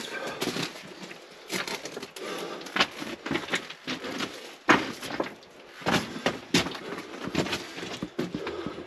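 Footsteps crunching and scraping over loose rock and gravel in a mine tunnel: an irregular run of crunches, with a few sharper knocks of rock.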